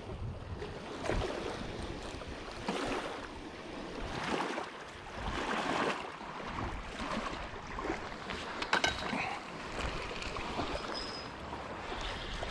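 Lake water lapping in a light wind: a soft wash every second or two, with a brief run of small clicks about nine seconds in.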